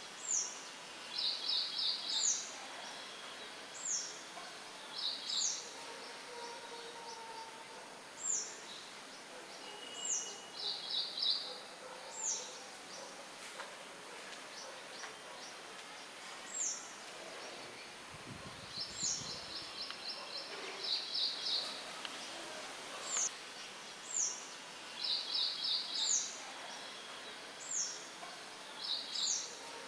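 Songbirds calling over a steady faint hiss of wind: a short high call that falls in pitch repeats every second or two, often followed by a quick trill of five or six notes. A brief low rumble comes about eighteen seconds in.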